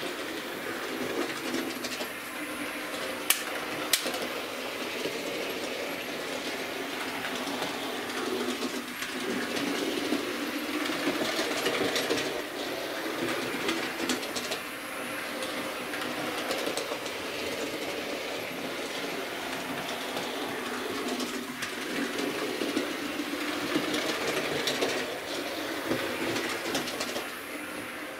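Hornby West Country class model steam locomotive running round the layout track, a steady motor and wheel noise that grows louder and softer as it goes round the loop, with a couple of sharp clicks about three and four seconds in. It is running normally, without derailing.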